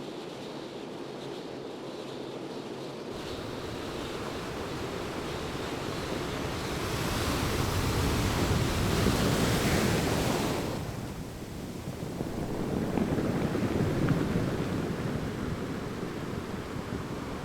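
Sea surf washing in, a steady rush that swells twice, the first surge the louder.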